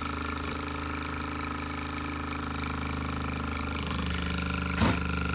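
Mamod TE1a model steam traction engine's single-cylinder oscillating steam engine running steadily at speed with a fast, even beat. There is one short knock about five seconds in.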